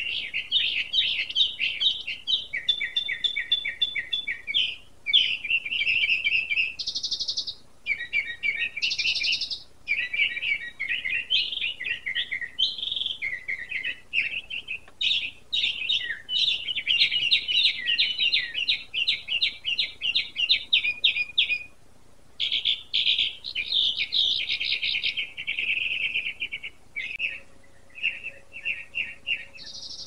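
Songbird song: long, varied runs of rapid trills and quick chirped notes, going on almost without pause, with only short gaps.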